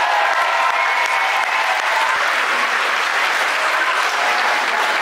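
Applause from a hall full of people clapping, steady and dense throughout.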